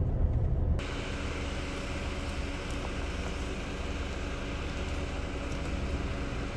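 Vehicle engine running: a loud low rumble that drops abruptly about a second in to a quieter, steady hum.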